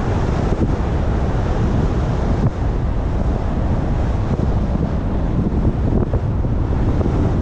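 Steady road noise from a car on the move: tyre rumble and wind rushing over the microphone.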